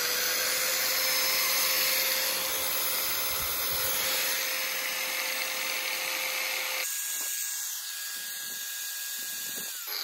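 Ryobi 800-watt corded angle grinder running free with no load, a steady motor whine just after spinning up. About seven seconds in the sound changes and thins, and near the end it begins to wind down.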